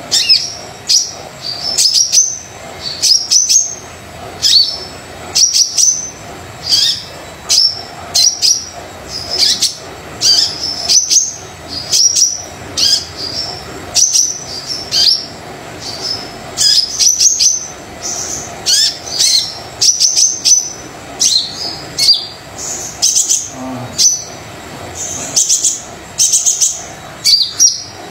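Brown-breasted sunbird singing energetically: a continuous string of short, high-pitched chirping phrases of sharp notes and quick downward sweeps, repeated about once a second.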